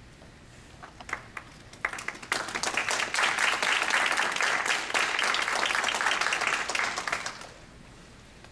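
Audience applauding to welcome a performer onto the stage: a few scattered claps about a second in, building into steady applause at about two seconds, then dying away at about seven seconds.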